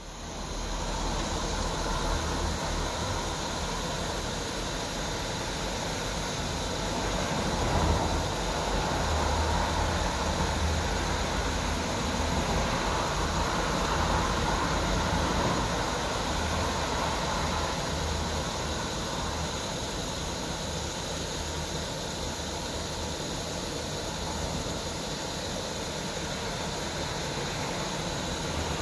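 Tilley pressure lantern burning paraffin, its pressurised burner giving a steady hiss.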